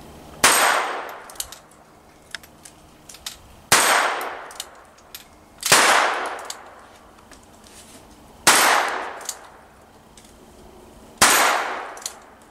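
Five shots from a competition handgun, irregularly spaced a few seconds apart, each followed by a long echo dying away, with faint sharp ticks between them.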